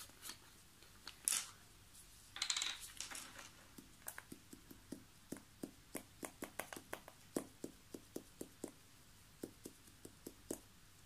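A short rustle of wiping, then a stirring stick clicking lightly and irregularly against the mixing container, about two or three clicks a second, as pigment powder is stirred into epoxy resin.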